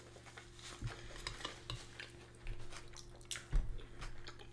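Cutlery clinking and scraping against dishes in small irregular clicks, with a few soft knocks, the loudest about three and a half seconds in, over a faint steady hum.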